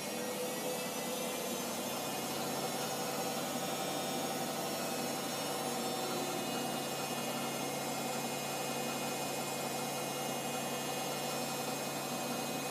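Hoover Optima washing machine on its final spin, the drum and motor running at high speed with a steady whine over a rushing noise.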